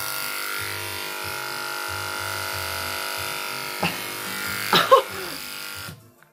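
Electric hair clippers running with a steady buzz as they are taken to the hair at the back of the head. A short, loud voice sound breaks in about four to five seconds in, and the clippers stop about six seconds in.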